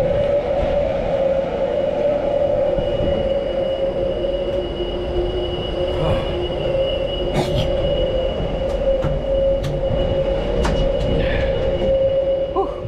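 Steady, loud machinery drone on a boat, mixed with rain and wind noise and a few scattered knocks. Near the end the sound drops sharply and turns muffled, as a door shuts on it.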